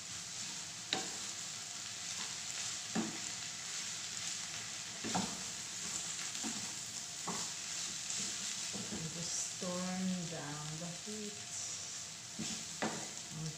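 Instant pancit canton noodles and vegetables sizzling in a frying pan over a gas flame while being stirred and tossed with a wooden spatula, with a steady hiss and occasional sharp knocks of the spatula against the pan.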